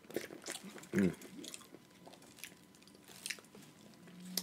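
Close-miked eating sounds of someone chewing crab in sauce: wet chewing and lip smacks with scattered small clicks. A brief hummed 'mm' comes about a second in, and a steady low hum near the end.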